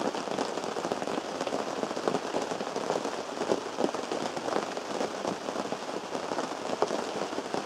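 Rain falling steadily on a canvas tent, heard from inside: an even hiss with many sharp taps of single drops.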